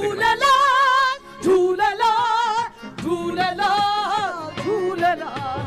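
Punjabi singing: a voice holds long, wavering high notes in three phrases, with short breaks about a second in and near the three-second mark.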